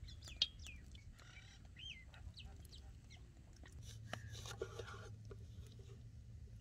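Faint bird chirping with chickens clucking in the background. About four seconds in, a knife cuts through an orange on a wooden chopping board, giving a few short knocks.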